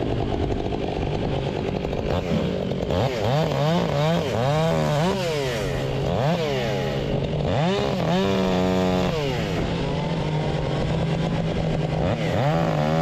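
Stihl 500i two-stroke, fuel-injected chainsaw running, its engine revving up and down many times in the middle, then holding a steady high speed near the end.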